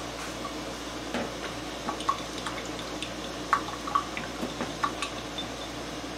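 Wooden stir stick stirring a carpenter's glue and water mix in a small glass jar, with a scattering of light clinks as the stick taps and scrapes the glass.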